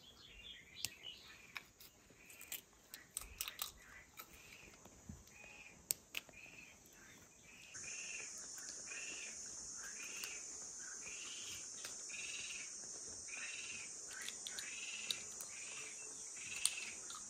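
Outdoor rural ambience: a short chirping call repeats a little more than once a second, and about eight seconds in a steady high insect buzz, like crickets, comes in and stays. Over the first seven seconds there are sharp snapping clicks, fitting green chickpea pods being plucked from their stems.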